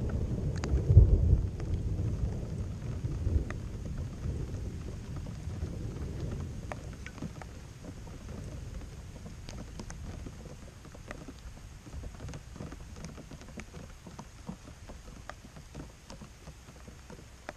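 Thunder rumbling low and dying away over the first several seconds, leaving a faint background scattered with small ticks.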